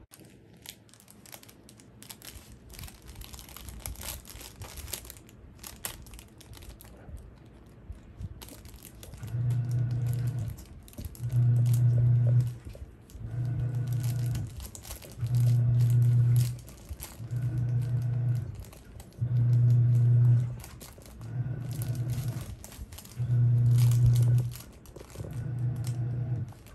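Puppy gnawing a plush toy on a plastic pet pad, with crinkling and rustling throughout. From about a third of the way in, a louder low hum comes in and goes off again in regular pulses about every two seconds, alternating stronger and weaker ones.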